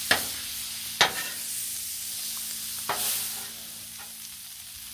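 Shrimp sizzling in butter on a Blackstone flat-top griddle while a metal spatula stirs them, a steady hiss broken by three sharp clicks of the spatula against the griddle: at the start, about a second in, and near three seconds.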